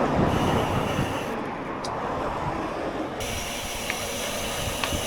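Strong wind buffeting the microphone of a bicycle rider's action camera while riding: a steady deep rushing noise, with the hiss turning brighter about three seconds in.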